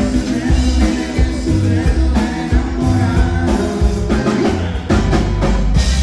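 Live conjunto band playing Tejano music: accordion, guitar, electric bass and drum kit together with a steady beat.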